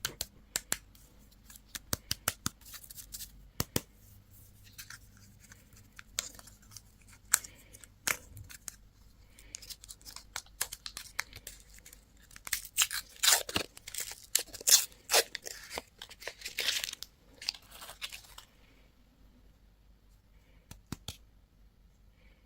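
Candy and toy packaging being torn open and crinkled. Scattered sharp clicks and taps come first, then a loud spell of tearing and crinkling in the middle. It dies down to a few faint clicks near the end.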